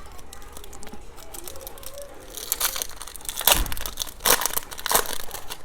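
Foil wrapper of a trading-card pack crinkling and tearing as it is opened by hand, with a run of irregular crackles that grow sharper and louder partway through.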